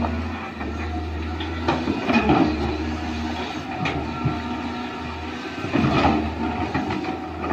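Small electric motors and plastic gearboxes of RC toy construction vehicles running with a steady whine and hum, with clattering knocks a few times, about two seconds in, four seconds in and six seconds in.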